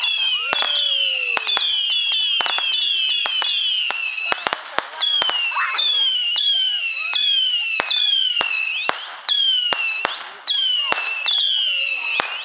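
Consumer whistling fireworks going off in quick succession: shrill whistles, each falling in pitch and overlapping the next, broken by sharp bangs and pops. The whistling pauses briefly twice after about nine seconds, then starts again.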